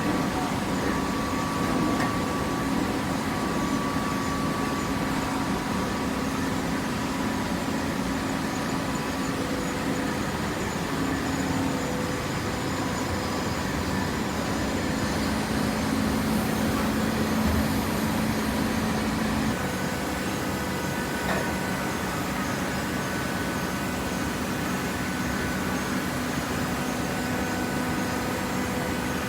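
Cardboard baler's conveyor belt and drive motors running steadily, a continuous machine noise with a low hum whose pitch shifts slightly about two-thirds of the way through.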